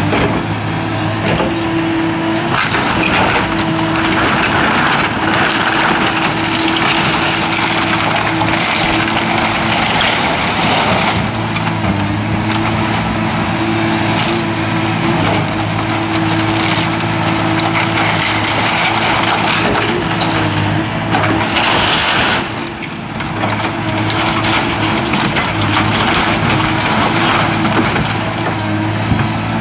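Hydraulic excavator's diesel engine running steadily under load while its bucket crushes and tears apart barn timbers, with repeated cracking and splintering of wood. The crunching eases briefly about two-thirds through.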